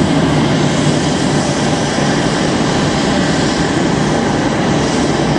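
Airbus A319-112's twin CFM56-5B turbofan engines at takeoff power as the airliner climbs out, a loud steady jet rumble, heaviest in the low end.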